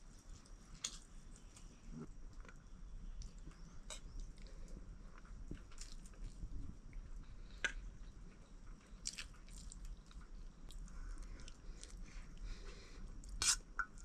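A person eating fried rice: close chewing with scattered small clicks and smacks, the sharpest one near the end.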